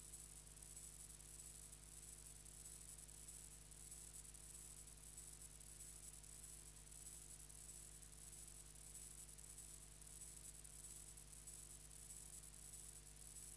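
Near silence: a faint steady hiss with a constant low hum.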